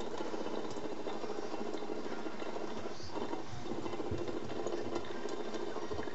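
Thin stream of tap water splashing steadily onto a plastic drain cover in a stainless steel sink. A few dull low thumps come around the middle and again near the end.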